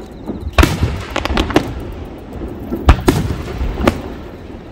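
Aerial firework shells bursting in a run of sharp bangs. The loudest come about half a second in and about three seconds in, with smaller pops between them.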